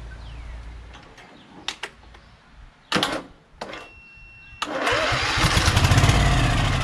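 A few clicks and a short beep, then about two-thirds of the way in the riding mower's Briggs & Stratton Vanguard engine cranks over on its electric starter with a rapid, even chuffing. It is turning over without catching, which the owner puts down to the fuel pump not yet having drawn fuel up.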